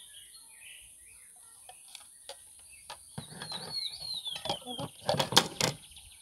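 Serving tongs clacking against a metal pot and dishes, with a cluster of sharp knocks about five seconds in, over a steady high insect drone. A bird chirps a quick run of short notes a little past the three-second mark.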